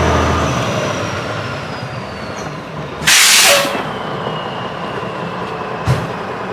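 Tri-axle dump truck pulling away, its engine hum fading and a high whine falling in pitch, then a loud sharp hiss of air from its air brakes a little over three seconds in. A short knock near the end.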